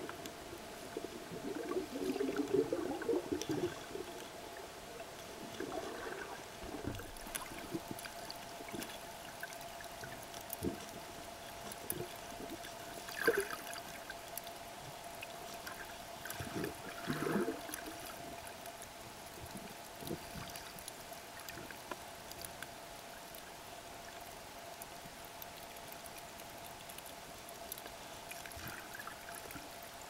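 Underwater sound of waves surging over a shallow coral reef flat, heard through a camera housing: the churning water gurgles and bubbles in uneven bursts, strongest in the first few seconds and twice more about halfway, then settles to a low wash with faint clicks.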